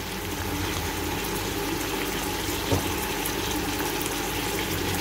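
Steady even hiss of kitchen background noise over a faint low hum, with one soft tap about two and a half seconds in.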